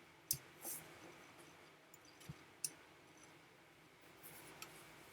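A handful of faint, scattered sharp clicks with a soft knock or two, over quiet room hiss; the loudest click comes about a third of a second in.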